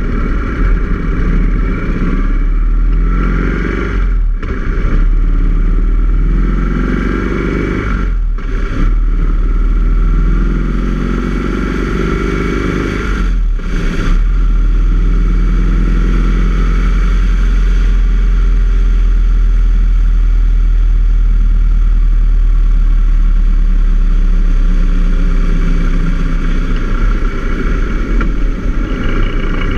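Motorcycle V-twin engine accelerating through the gears: the pitch rises three times, with a short dip at each shift about four, eight and fourteen seconds in. It then runs steadily at cruising speed, with a strong rumble of wind and road noise on the bike-mounted camera.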